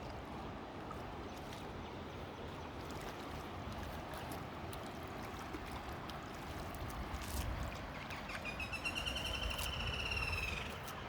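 Running water trickling and gurgling over a steady outdoor background. Near the end a high, warbling trill sounds for about two and a half seconds.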